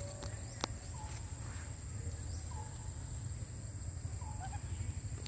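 Outdoor ambience: a steady low rumble with a thin high whine above it. Three short, slightly falling animal calls come about a second and a half apart, and a single sharp click sounds just under a second in.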